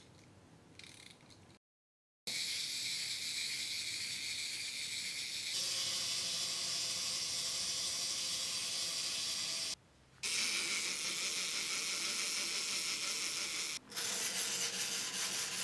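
Plastic wind-up toys' spring motors and gear trains running with a steady high-pitched whirr. It starts about two seconds in and breaks off briefly twice. Near the end there is a quick, even clicking.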